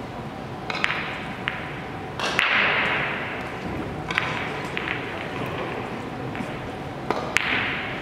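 Sharp clicks of carom billiard balls striking cue and each other, several scattered clicks with two louder ones about two and a half seconds in and near the end, echoing in a large hall.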